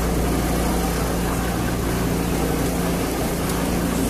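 Traditional street tram heard from on board while running along street track: a steady hum and rumble from the moving tram and its wheels on the rails.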